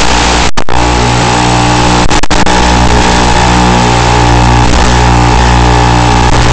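Loud, steady electronic buzz and hiss, the noise an analog FPV video receiver's recorder lays down on its audio track, with a fixed hum that does not change with the flying. It cuts out for an instant twice, about half a second in and again about two seconds in.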